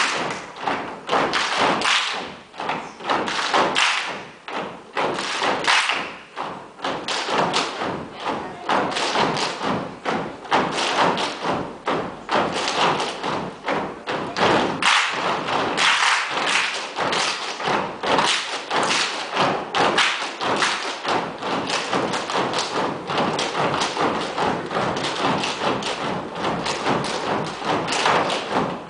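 Gumboot dancers stamping and slapping their boots together in rhythm, a rapid run of many thumps and slaps.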